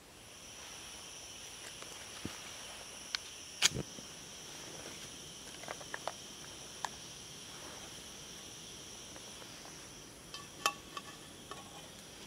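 Small gas canister camping stove burning with a steady high-pitched hiss. Sharp clicks and knocks of the stove and pan being handled come through it, the loudest about three and a half seconds in and a small cluster near the end.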